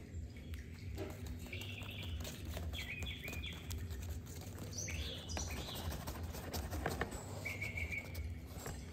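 Rustling and light tapping of a wand toy's plush pieces being jiggled against a fabric cat play tunnel, with several short high chirps in small clusters, over a steady low hum.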